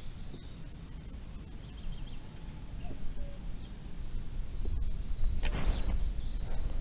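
Outdoor lakeside ambience: wind rumbling on the microphone, with small birds chirping. A short rush of noise comes about five and a half seconds in, as the rod is swept up.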